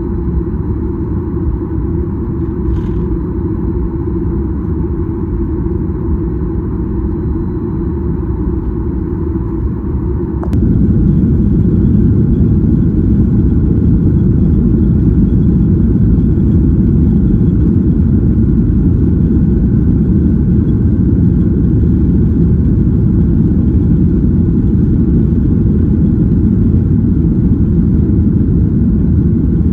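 Boeing 737-800's CFM56-7B engines and runway rumble heard inside the cabin on the takeoff roll: a steady low rumble that jumps louder with a click about ten seconds in.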